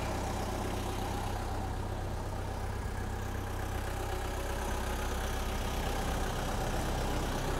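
Steady low drone of an engine idling close by on the airport ramp, unchanging throughout.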